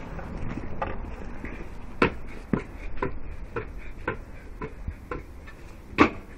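A string of light, sharp knocks and clicks over a soft hiss, coming roughly every half second from about two seconds in. The sharpest knocks are about two seconds in and near the end.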